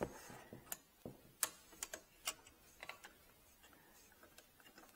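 Faint, small sharp clicks at an irregular pace, about two a second, from a hand screwdriver driving a screw to fasten a steel DIN rail; they thin out after about three and a half seconds.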